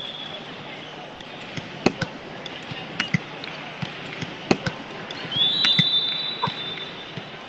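A few sharp thuds of a volleyball, the loudest about two seconds and four and a half seconds in. Then a referee's whistle is blown and held for about two seconds.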